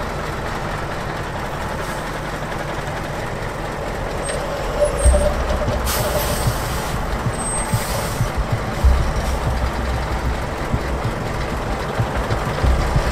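A MAN KAT 8x8 military truck's diesel engine running steadily under load as the truck crawls over rough ground, rumbling louder about five and nine seconds in. Two short hisses of air, from about six and eight seconds in, are typical of the truck's air brakes.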